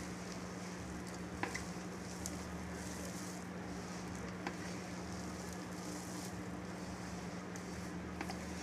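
Hand squeezing and mixing a damp chopped-coriander and gram-flour mixture in a stainless steel bowl: a soft, rustling squish with a few faint clicks, over a steady low hum.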